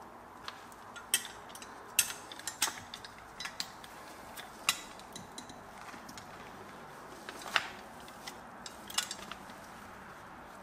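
Hand pop-rivet tool squeezed to rivet the metal grille of a Mini Tonka toy truck: scattered sharp metallic clicks and clinks, the loudest about two seconds in and again near eight seconds.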